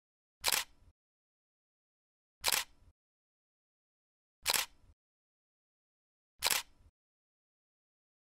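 Four camera-shutter clicks about two seconds apart, one for each photo shown.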